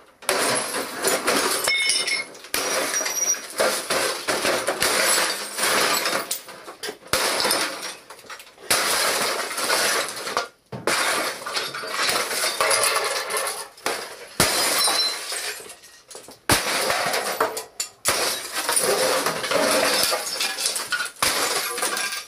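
An old CRT all-in-one computer being stomped and kicked apart: its screen glass shatters and its plastic case cracks, with shards crunching and scattering underfoot. The smashing comes in loud bouts broken by short pauses.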